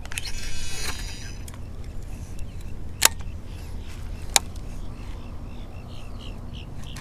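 Baitcasting reel's spool whirring as a jig is flipped out, fading after about a second and a half, followed by two sharp clicks from the reel a second or so apart.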